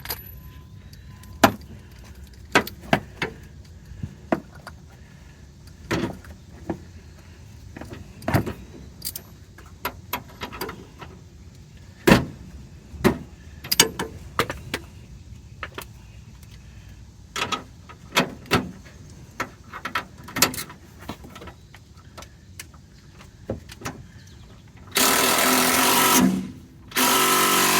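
Scattered clicks and taps of tools being handled, then near the end an impact wrench running loudly in two bursts with a short break between them, driving the top idler arm bolt tight.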